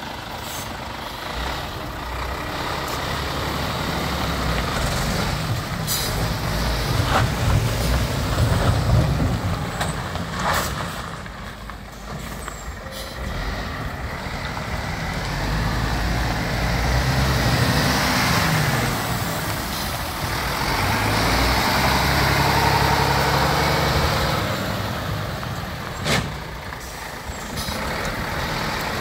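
A 2018 Scania P410 8x4 tipper's six-cylinder diesel engine running while the truck drives slowly around. The engine note rises and falls as it pulls away and slows. A few short air-brake hisses cut in.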